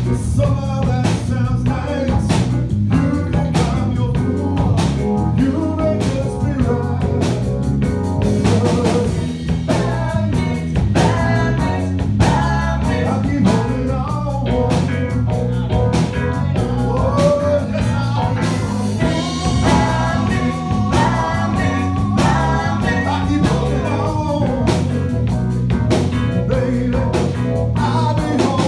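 A live yacht rock band playing a song, with a woman singing lead into a microphone over drum kit, electric bass, electric guitar and keyboard.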